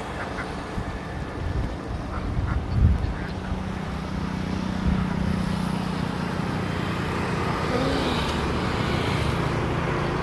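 Domestic ducks quacking now and then from a flock on the water, over steady road traffic noise, with a low engine drone in the first half.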